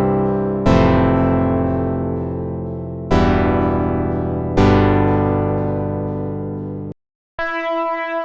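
Electric-piano-style preset from the UVI Cameo software instrument playing chords. Each chord is struck and fades away, with three new chords about a second, three and four and a half seconds in. The sound stops about seven seconds in, and after a short gap a different preset starts with a steady, held tone.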